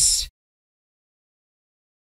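Dead digital silence, with no room tone at all, after the tail of a spoken word in the first moment.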